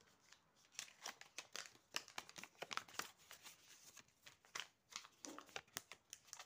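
Quiet handling noise from a small plastic magic box and a paper banknote: a run of small clicks and taps as the box is opened, then crinkling as the note is pulled out and flapped.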